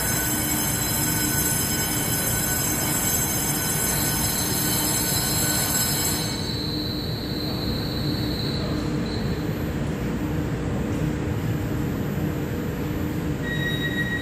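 Taiwan Railway EMU3000 electric multiple unit standing at the platform with its doors closing for departure: a steady high-pitched electrical whine of several tones over a low rumble. The whine cuts off about six seconds in, and a new steady tone starts near the end.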